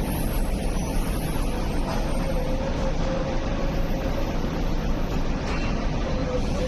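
Pair of Hong Kong Light Rail Phase 1 light rail vehicles shunting slowly across the depot yard tracks: a steady running noise with a faint steady whine that comes in about two seconds in.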